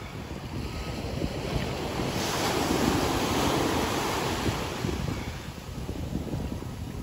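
Small ocean waves breaking and washing up the sand at the water's edge, one wash swelling louder about two seconds in and easing off again, with wind buffeting the microphone.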